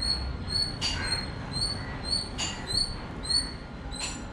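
High, thin bird chirps repeated about four times a second, with a sharper, louder call about every second and a half, over a low steady background rumble.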